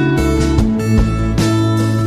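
Background music with strummed guitar over a steady bass line.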